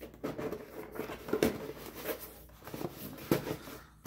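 Cardstock gift box being handled on a cutting mat: irregular paper rustling and light taps as the pieces are pressed into place, with two louder knocks, one about a second and a half in and one near the end.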